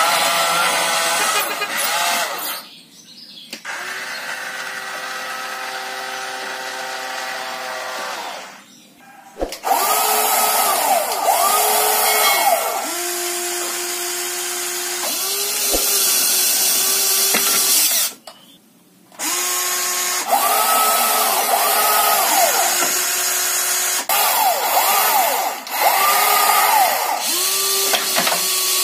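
Small electric motors and gearboxes of remote-control toy vehicles whining, speeding up and slowing down in short runs, with a few brief pauses.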